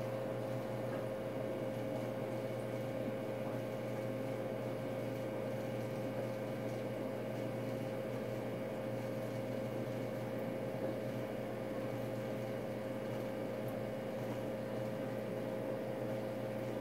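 Steady machine hum with one constant tone above it over an even hiss, unchanging throughout.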